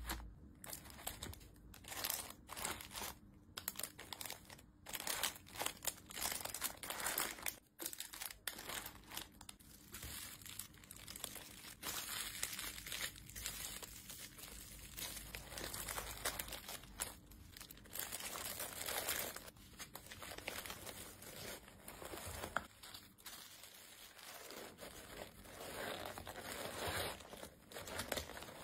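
Plastic packaging and cellophane bags crinkling as hands handle and arrange small wrapped items in a cardboard mailer box, in irregular crackles and rustles.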